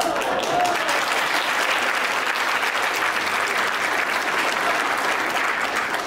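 Audience applauding, a dense, steady clapping.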